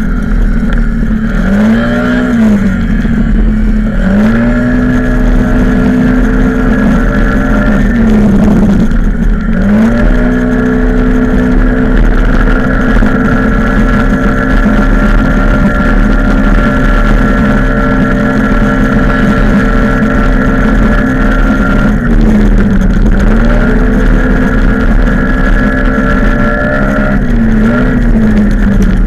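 Onboard sound of a small motorbike engine running hard at high, fairly steady revs. Its pitch drops and picks up again several times as the throttle is eased for corners, with a long unbroken stretch at constant revs in the middle.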